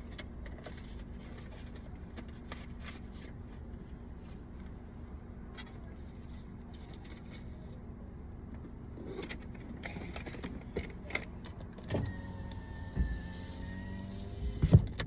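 Car idling, heard from inside the cabin: a steady low hum with scattered small clicks and handling noises, and a sharp thump near the end.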